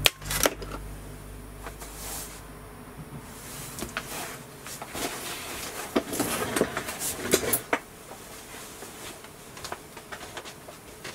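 Two sharp clicks right at the start, the second the loudest. A low electrical hum fades out about four seconds in, and scattered clicks and light handling knocks follow.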